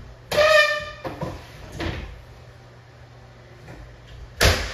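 A vinyl flooring plank being cut: a short squeaky scrape near the start, two lighter scuffs, then a sharp crack near the end.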